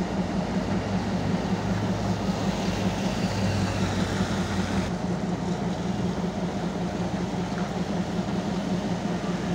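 Narrow-gauge NDM6 diesel locomotive's engine running steadily at low speed as it moves along the track; a lower layer of its drone and a background hiss drop away about five seconds in.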